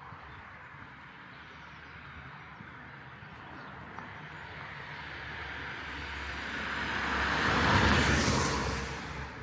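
A vehicle approaching and passing close by: a steady rushing noise that builds for several seconds, peaks about eight seconds in, then fades quickly.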